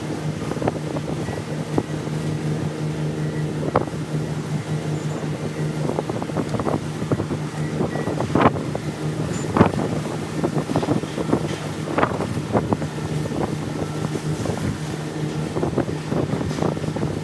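A steady low machine hum with scattered knocks and clicks over it.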